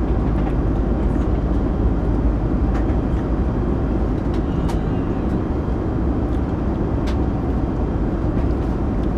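Steady roar of an airliner's cabin noise, engines and airflow, with a few faint clicks of cutlery on a plate.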